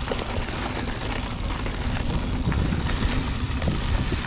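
Motobecane HAL Boost Eagle mountain bike rolling along rocky dirt single track. Steady tyre and trail noise with scattered clicks and rattles from the bike over bumps.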